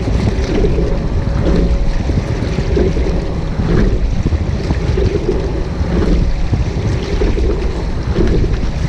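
Wind buffeting the microphone of a camera on the bow of a rowing shell, with water rushing along the hull as the boat is rowed. The sound swells and eases in a repeating rhythm.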